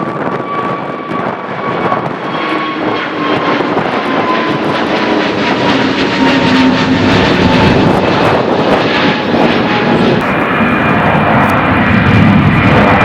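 Jet airliner engines at take-off power, a roar that grows steadily louder with a high whine slowly falling in pitch. The sound changes abruptly about ten seconds in.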